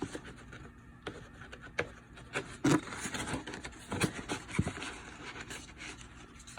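Pages of a paper instruction manual being turned and handled, with scattered rustles, rubs and light clicks of paper.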